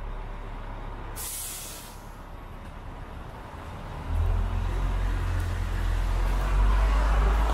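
City bus at the curb letting out a short air-brake hiss about a second in, over the steady wash of rain and street noise. A low rumble of traffic comes in suddenly about four seconds in and grows louder.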